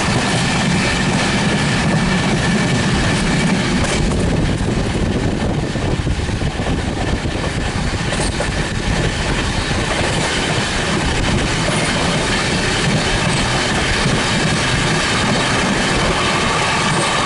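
Express passenger train running at speed: a loud, continuous rush of wheels on rail with steady clickety-clack.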